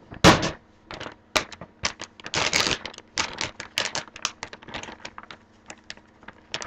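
Plastic snack bag of dried pineapple rings crinkling and crackling as it is opened and handled: a string of sharp clicks and rustles, the loudest just after the start, with a longer rustle about two and a half seconds in.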